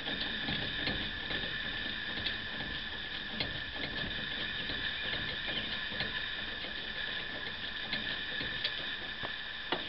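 Sparse, faint metallic clicks of a wrench and nut on the flange bolts of a Bell & Gossett circulator pump being tightened, with a sharper click near the end, over a steady high hiss.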